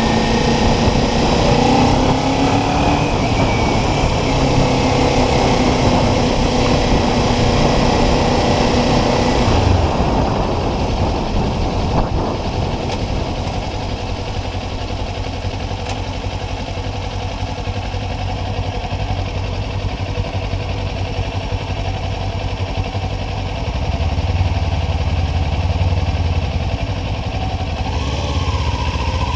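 Motorcycle engine running on the move, its pitch rising and falling with speed, over a steady rush of noise. About ten seconds in the engine note drops back and quietens, and a deeper low rumble builds again near the end.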